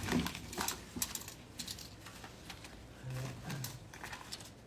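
Scattered light clicks and taps of small objects being handled and set down on a table, with no steady rhythm.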